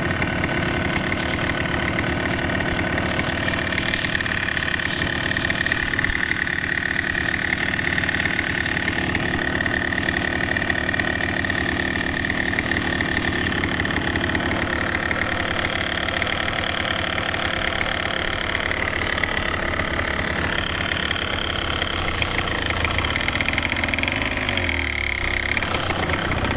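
Small dirt bike's engine running at a fairly steady throttle while the bike is ridden along, dipping briefly in pitch near the end.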